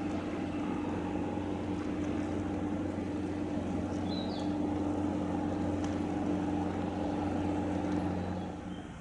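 Steady low drone of a ship's diesel engines with a hum of a few fixed tones, fading away near the end. A single short bird chirp about four seconds in.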